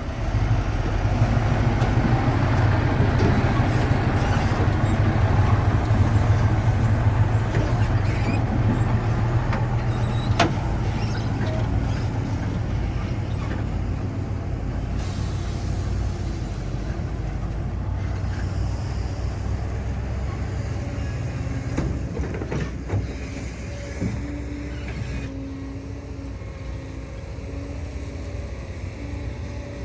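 Diesel engine of a heavy construction machine running with a steady low rumble, working hardest for the first ten seconds or so and then easing off, with a sharp click about ten seconds in.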